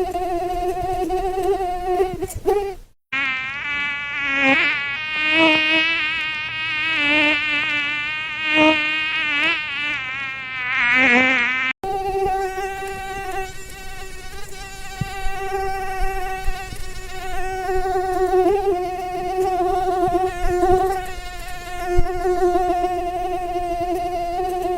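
Mosquito wing whine, a buzz with many overtones. About three seconds in it drops out briefly and gives way to a lower buzz that wavers in pitch and swells and fades; this cuts off sharply about twelve seconds in, back to a steady whine.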